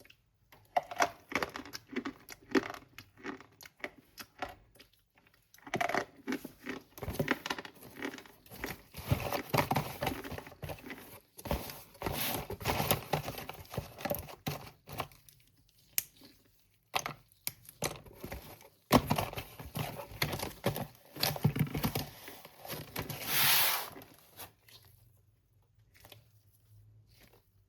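Slate pencil packaging torn and crinkled by hand: runs of rustling and tearing with short pauses, the loudest swell about three-quarters of the way through, then dying away near the end.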